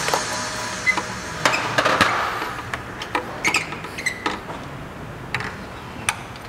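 Metal hand tools clicking and clinking at uneven intervals as a spark plug socket on a long extension bar is worked in the plug wells and drawn back out.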